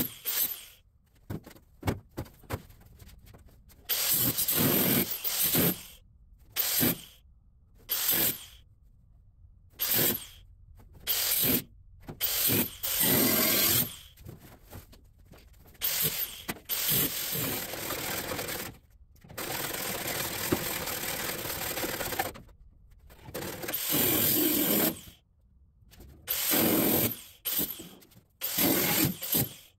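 A handheld power cutting tool slicing through the steel roof pillars of a 1953 Chevy truck cab to chop the top. It cuts in about a dozen stop-start bursts of one to three seconds, with short pauses between.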